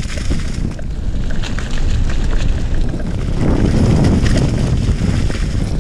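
Wind buffeting a mountain biker's microphone, a dense low rumble that swells about halfway through, with the bike's tyres rolling over a loose dirt trail and small rattling clicks throughout.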